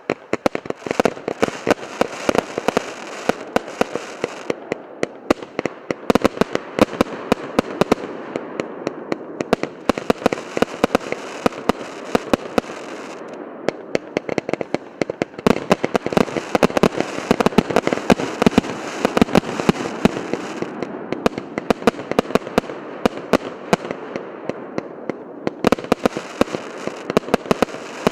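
Firework cake 'Yantar' (ОТ 012) firing continuously: a rapid, unbroken run of sharp shots and bangs over a dense crackle, with short lulls in the crackle now and then.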